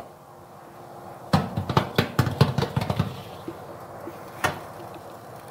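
Baking tray slid into an oven onto its wire rack: a quick run of metal clatters and scrapes lasting about two seconds, then a single knock near the end.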